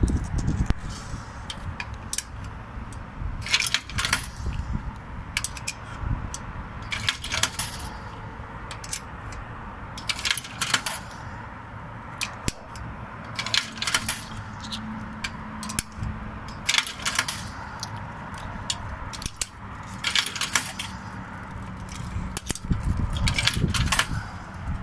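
Coins fed one at a time into the coin slot of a Kis Wash laundry kiosk's payment panel. Each drops through the coin mechanism with a sharp metallic clink, about every three seconds.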